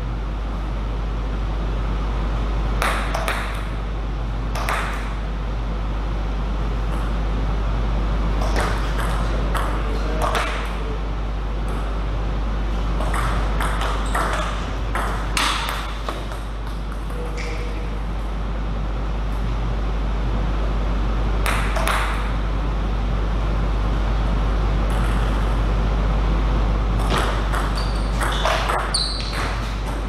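Scattered single clicks of a table tennis ball, a second to several seconds apart rather than in a rally rhythm, as the ball is tapped and bounced between points. A steady low hum runs underneath.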